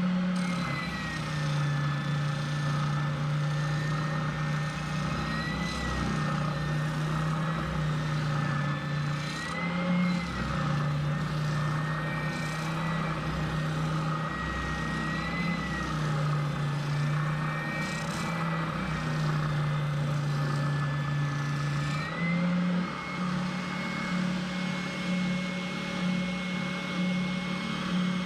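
Router motor running steadily. Its pitch drops about a second in and stays lower, rising briefly every few seconds, as the bit cuts under load. About 22 seconds in it climbs back to its free-running pitch as the load comes off.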